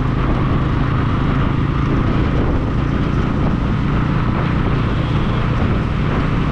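Motorcycle riding along: a steady engine drone mixed with wind rush buffeting the microphone.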